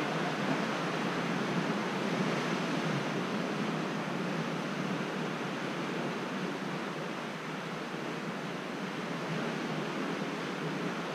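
Steady wash of sea surf against the rocks, an even rushing noise with no breaks.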